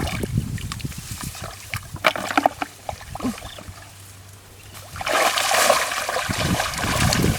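Muddy water splashing and sloshing, with scattered short knocks in the first half and a louder stretch of splashing from about five seconds in.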